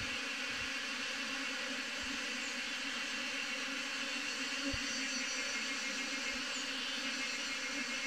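Honeybee swarm buzzing: a steady drone of many bees flying around a swarm cluster hanging from a branch, with a few soft low bumps.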